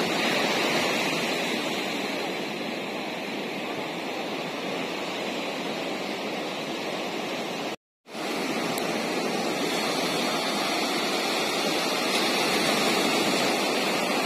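Surf breaking and washing up a sandy beach, a steady rush of waves. The sound cuts out completely for a split second about halfway through, then carries on as before.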